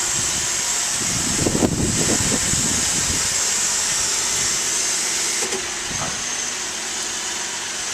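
Inside the cabin of a 2010 Mazda CX-9 moving slowly out of a driveway: a steady hiss, with a low rumble between about one and three seconds in.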